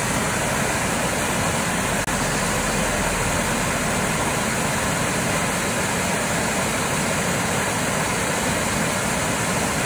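Storm-sewer overflow surging up through a grating into a small beck: steady rushing and churning of water. The sewer is overflowing under sustained autumn rain.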